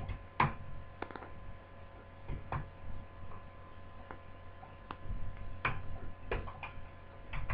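Sharp plastic clicks and snaps, irregular and spaced a second or so apart, as a small screwdriver prises the clipped-on plastic screen bezel of a laptop loose at the hinges. A faint steady hum lies underneath.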